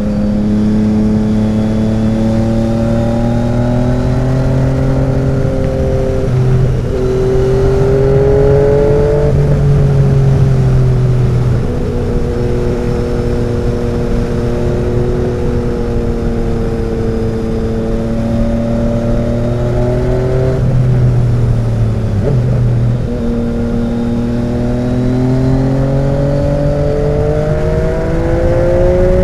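Yamaha XSR900's inline three-cylinder engine running through an SC-Project 70s conical exhaust under way. The note climbs steadily as the bike accelerates, then steps up or down in pitch several times at the gear changes.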